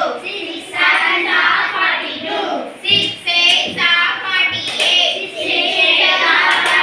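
Schoolchildren's voices reciting a multiplication table aloud in Tamil, in a chanted, sing-song rhythm.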